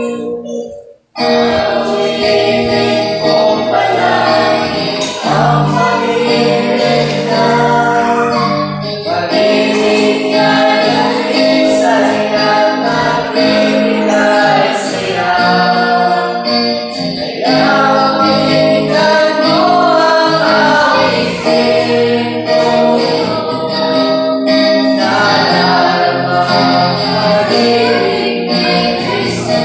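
Small mixed group of young voices, girls leading, singing a hymn together over instrumental accompaniment. The sound cuts out briefly about a second in, then the singing runs on.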